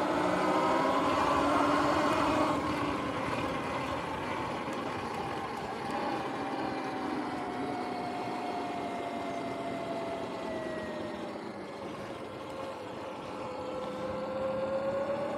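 Sur-Ron X electric dirt bike riding along, its motor and belt drive giving a whine that rises in the first couple of seconds, sinks slowly in pitch through the middle and climbs again near the end, over a steady rushing noise.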